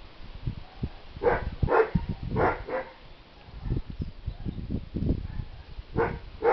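Short animal calls, four in quick succession in the first half and two more near the end, over low thumps and rustling close to the microphone.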